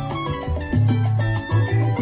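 Salsa music playing: a dance track with a strong bass line and steady beat under pitched instruments.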